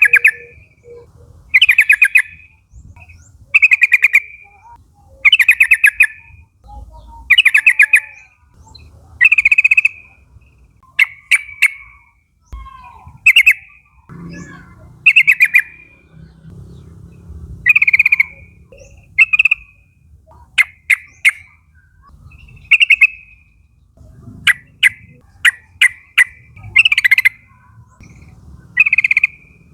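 Yellow-vented bulbul (trucukan) calling: short, loud, bubbling chirp phrases repeated about every one and a half to two seconds, some broken into quick clicky note clusters.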